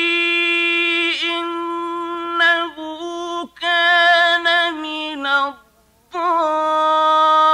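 A man's voice in melodic mujawwad Quran recitation, drawing out long held notes with wavering ornaments. About six seconds in the line falls and stops for a breath, then a new long note begins.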